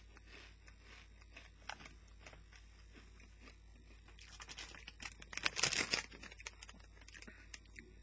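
Crunching and chewing of Doritos tortilla chips, faint at first, with a louder spell of crackling about five and a half seconds in.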